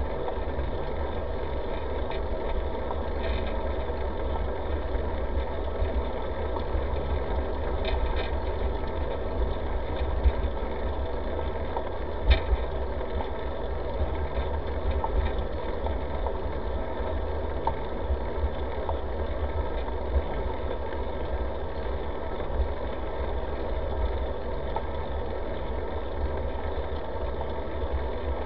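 Steady low rumble from a camera mounted on a moving bicycle, the tyres rolling over asphalt and the ride's vibration shaking the mount, with a sharp knock about twelve seconds in.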